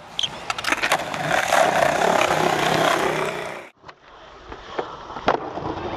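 Skateboard wheels rolling over a concrete skatepark surface, a steady grinding rumble with scattered clicks. It cuts off suddenly about three and a half seconds in, then the rolling resumes more quietly, with one sharp clack of the board about five seconds in.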